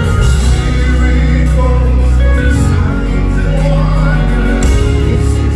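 Live gospel worship music from a band, with a heavy sustained bass line changing note every couple of seconds and some singing over it.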